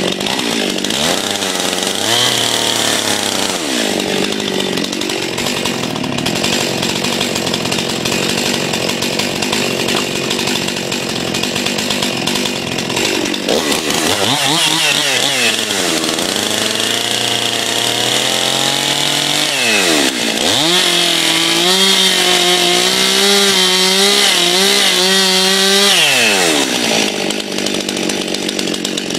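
Stihl MS 261 C-M two-stroke chainsaw cutting wood, the engine dropping off and revving back up about six times, with its longest steady run at high revs roughly two-thirds of the way through.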